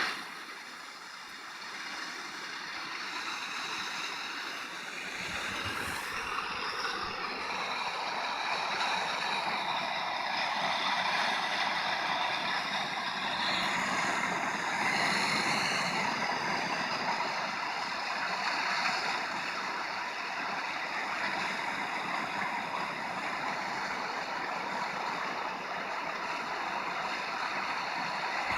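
FM radio receiver tuned to 93.9 MHz, playing a steady rushing noise with a faint high whistle and high tones that waver now and then: an unidentified signal on the channel.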